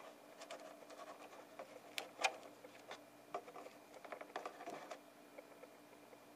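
Faint clicks and scratches of a fingertip pressing a small piece of cardboard into a hole in the Epson PX650 printer's plastic grille, with two sharper clicks about two seconds in, over a faint steady hum.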